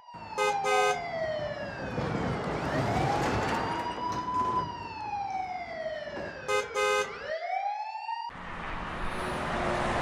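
Police siren sound effect wailing, its pitch sliding slowly down, up and down again, with a short double beep of a car horn about half a second in and again about six and a half seconds in. Near the end the siren rises once more and gives way to a steady road-traffic noise.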